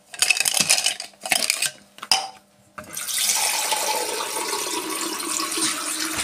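Toothbrushes clattering against a toothbrush holder cup as they are pulled out, then about three seconds in a bathroom tap starts running steadily into the sink.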